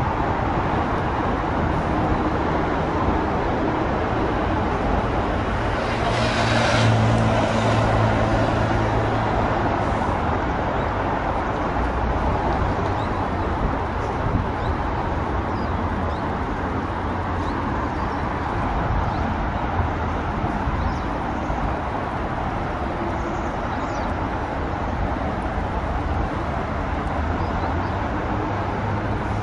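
Steady road traffic noise from city roads and an elevated expressway, with one vehicle passing louder about six seconds in.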